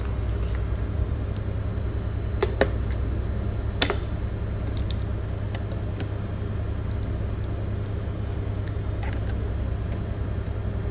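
Steady low machinery hum of a ship's bridge, with a few light clicks about two and a half and four seconds in as a USB flash drive is handled at the control unit.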